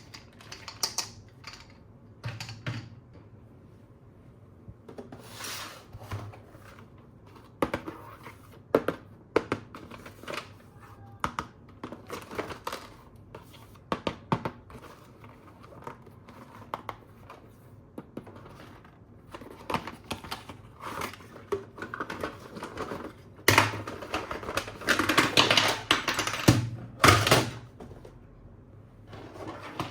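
Plastic toys and packaging being handled during an unboxing: scattered clicks, taps and knocks, with a longer, denser stretch of rustling and clattering about three-quarters of the way through.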